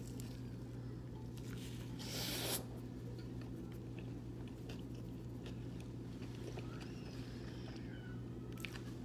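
A person chewing a mouthful of vegan pizza, with small wet mouth clicks, over a steady low hum. About two seconds in there is a short, loud breathy hiss.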